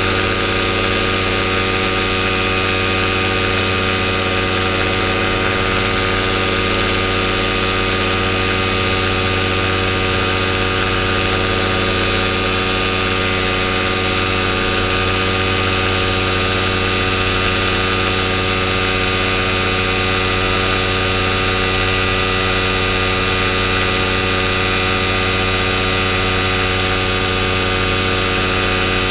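Paramotor engine and propeller running steadily in flight, one unbroken engine note with no change in speed.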